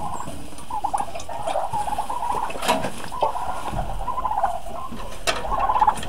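Domestic turkeys calling softly with wavering, trilling calls. Two sharp knocks come through, one about midway and one near the end.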